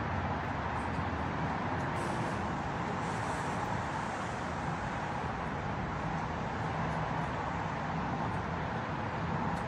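Steady street traffic noise: an even hum of road traffic with no distinct events.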